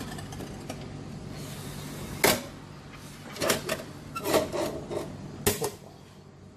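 Metal serving hatch of a retro soba and udon vending machine opening with a sharp clack about two seconds in. It is followed by a run of knocks and scrapes as the cooked bowl of soba is lifted out through the hatch.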